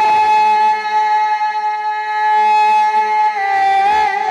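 A naat singer's male voice holding one long, high sung note over a microphone, almost unwavering for about three seconds, then dipping a little in pitch and wavering near the end.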